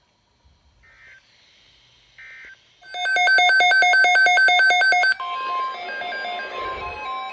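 Weather radio alert tones: two short faint data bursts, typical of the SAME end-of-message code, then loud rapid electronic alert beeps for about two seconds, then a steady high alarm tone with a stepping electronic melody over it.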